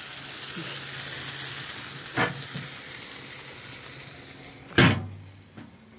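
A whole turkey sizzling on a charcoal grill, its drippings hissing steadily. There is a short knock about two seconds in and a louder clunk near five seconds, after which the sizzle fades away.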